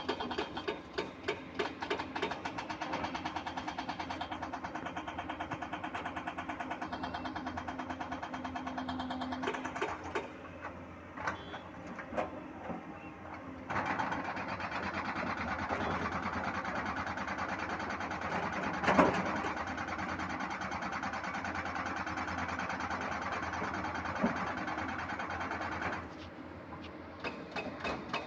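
Engine of a heavy construction machine running with a fast, even chatter. It works harder and louder from about halfway through, with a sharp clank in the louder stretch, and eases off near the end.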